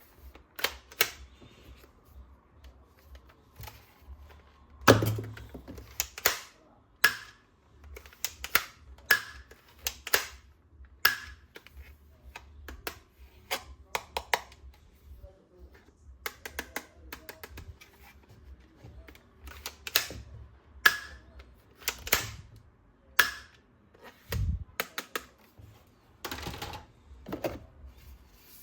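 Hard plastic toy weapon parts being handled: irregular sharp clicks and taps, roughly one a second, with a heavier knock about five seconds in and a dull thump near the end.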